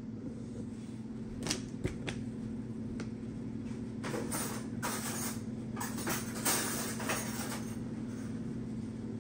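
Scattered household knocks and clatters of someone moving about a kitchen: a few sharp clicks about one and a half to two seconds in, then a busier run of knocks and rustles in the middle, over a steady low hum.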